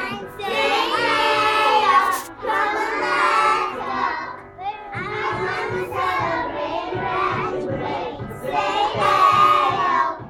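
A class of preschool children singing a song together in a group, in phrases with short breaks, over accompanying music with a steady beat that comes in about halfway through.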